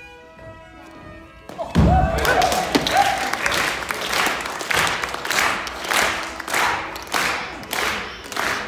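Fiddle playing a halling tune, then about 1.7 s in a heavy thud on the wooden stage as the halling dancer lands from his hat kick. Audience cheering and clapping follow, the clapping settling into a steady beat a little under twice a second.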